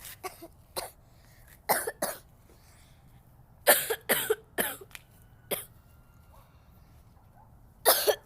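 A girl coughing in repeated fits, single coughs and bunches of two or three, the strongest bout about four seconds in; she puts the coughing down to being sick.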